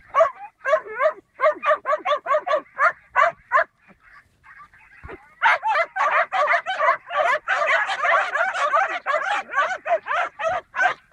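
Several young puppies yapping and yelping in a quick string, about three high yelps a second. After a brief lull around four seconds in, they yap together in a dense, overlapping chorus.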